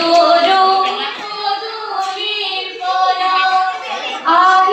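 A group of schoolgirls singing biya naam, the traditional Assamese wedding song, together into microphones. The voices drop softer through the middle and come back strongly near the end.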